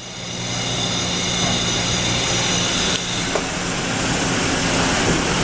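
Steady mechanical hum from a running CNC turning center, with several high whining tones over a low drone. It fades in over the first second.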